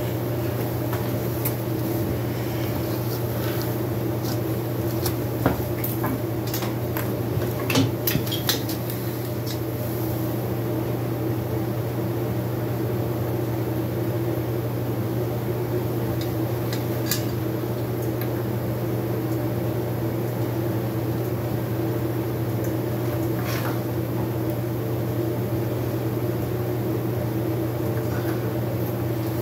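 A steady low machine hum throughout, with a few light metallic clinks and taps from engine parts being handled, clustered between about five and nine seconds in and once or twice later.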